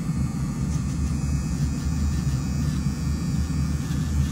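Steady low whirring hum of a small motor running at the manicure table, from the electric nail file or the dust collector, with no change in pitch or level.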